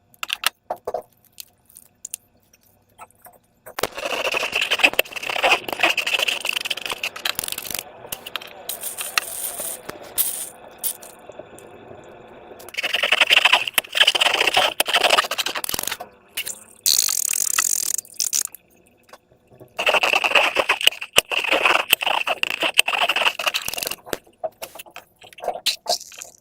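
Hands working slime and transparent rubber balloons: stretches of rubbing, scraping and crackling that last several seconds each, after a few scattered clicks at the start.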